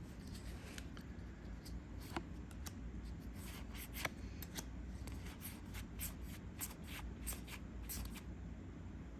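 Trading cards being handled and flipped through: faint, irregular flicks and slides of card against card.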